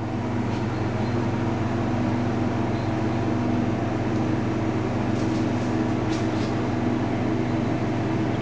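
A machine running with a steady hum of several held low tones.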